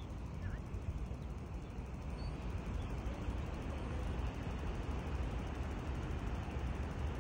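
Wind buffeting a phone's microphone: a steady, gusting low noise with a fainter hiss above it.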